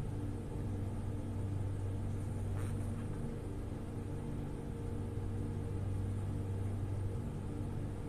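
A woman snoring through an open mouth in her sleep: a low, steady rumble.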